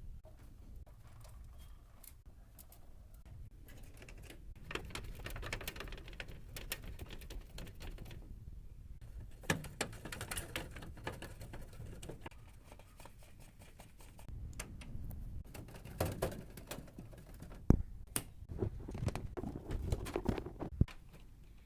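PC components being handled during assembly: a stream of small irregular clicks, taps and rustles, with a few sharper knocks near the end.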